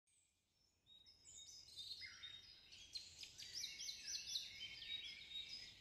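Faint forest ambience of several birds chirping and calling over one another, with short down-sweeping whistles, starting about a second and a half in.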